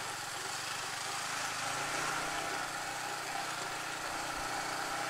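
Yamaha motorcycle engine running steadily at low speed in second gear, heard from the rider's seat, over a steady rush of wind and road noise.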